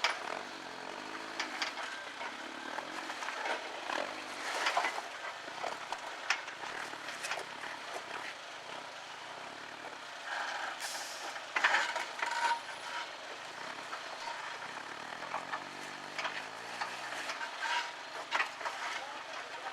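Suzuki Jimny Sierra's engine working at low revs while it crawls over rocks, its pitch rising and falling, with scattered knocks and scrapes of the 4x4 on rock, the loudest about twelve seconds in.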